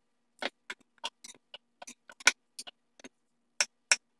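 Large carving knife chopping a pineapple quarter into small pieces on a wooden cutting board: a quick, uneven run of sharp knocks as the blade hits the board, the loudest about halfway through.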